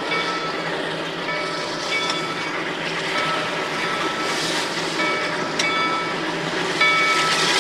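Narrow-gauge passenger coaches rolling past on the rails: a steady rolling rumble with thin, high steady squeals that come and go, and a single sharp click about two thirds of the way through.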